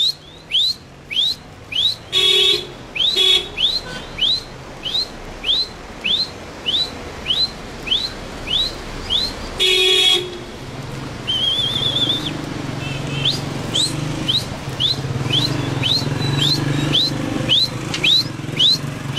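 Short, loud, rising whistle notes repeated steadily about twice a second: a goat herder whistling to drive the herd along. A vehicle horn honks briefly twice, about two seconds in and again about ten seconds in. From about eleven seconds in, a low steady engine hum joins.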